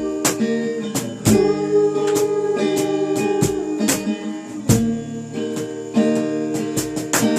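Acoustic guitar strumming chords, with no singing over it.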